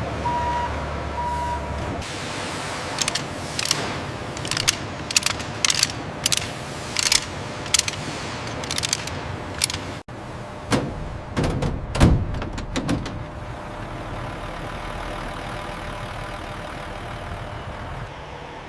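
Industrial machinery running with a series of sharp clanks and knocks, and a short electronic beeping at the start. After a break about ten seconds in come a few more heavy knocks, then a steady machine hum.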